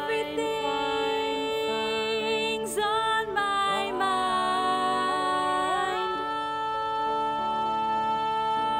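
Two women singing a slow song together in harmony over instrumental backing. Their voices hold notes with vibrato, slide between notes about three to four seconds in, and then settle into long held notes.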